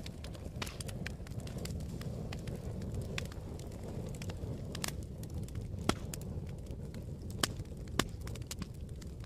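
Wood fire in a fireplace crackling, with a steady low sound of the flames and scattered sharp pops, three of them louder in the second half.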